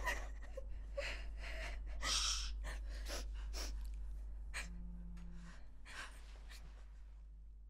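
A girl crying: shaky sobbing breaths, gasps and sniffs that fade away. About four and a half seconds in, a phone gives one short vibrating buzz.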